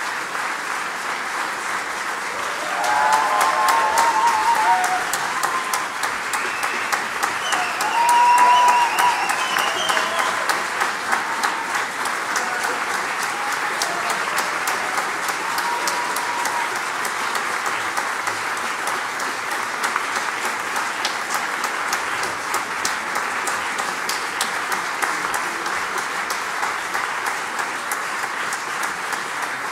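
Concert audience applauding steadily, with a few voices calling out over the clapping about three and eight seconds in.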